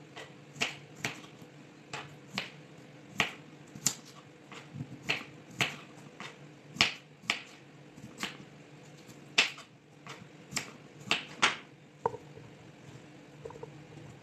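Kitchen knife slicing potatoes on a wooden cutting board: sharp, irregular knocks of the blade hitting the board, one or two a second, that stop about twelve seconds in. A faint steady hum runs underneath.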